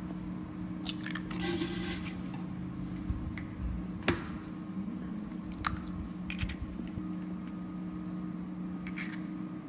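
Eggs being cracked on a stainless-steel bowl and separated between the shell halves: a few sharp taps of shell on metal, the loudest about four seconds in, with soft wet shell handling in between. A steady low hum runs underneath.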